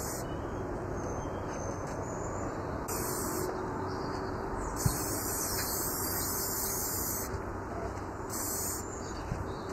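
Aerosol spray can of clear lacquer hissing in several short bursts, the longest about two seconds, with a single sharp click about five seconds in.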